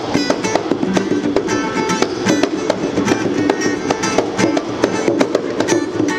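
Acoustic guitar strummed alongside a pair of bongos played by hand, the drum strikes falling in a quick, steady rhythm over the chords.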